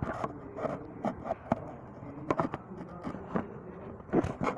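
Scattered light clicks, knocks and scrapes of hand tools and metal parts being handled during work on a car engine, irregular and without a steady rhythm.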